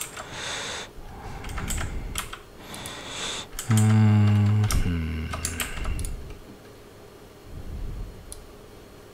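Scattered computer-keyboard keystrokes and clicks over the first six seconds, with a short low hum about four seconds in.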